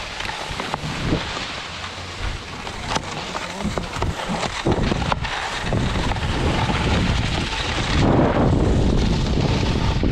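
Wind buffeting an action camera's microphone during a tandem paraglider's running launch on snow, building up from about halfway and loudest near the end as the glider lifts off. Scattered knocks and crunches from the run in the first few seconds.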